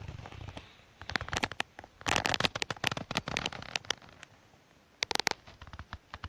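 MIG welder crackling in three short bursts, about a second in, from two to three and a half seconds, and briefly near five seconds: tack welds on steel car-body sills.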